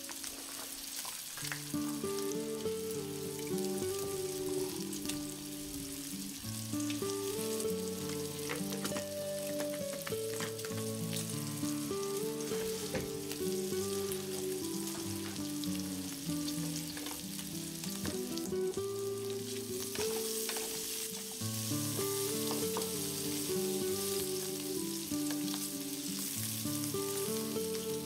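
Meat sizzling as it fries in a steel pan on a small hobo stove, a steady hiss with occasional clicks. Instrumental background music with a melody plays over it.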